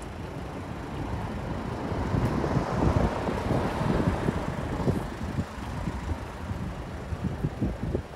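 Street noise from the waterfront road with wind buffeting the microphone; the traffic noise swells about three seconds in and then eases.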